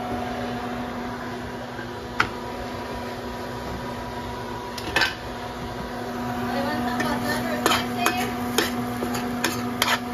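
Kitchen utensils and dishes clinking and knocking over a steady electrical hum; a couple of single clinks at first, then clattering more often over the last few seconds.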